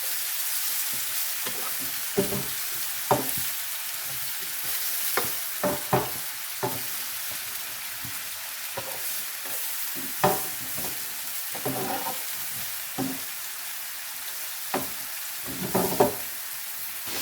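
Food sizzling in hot oil in a frying pan, with a utensil scraping and knocking against the pan every second or so.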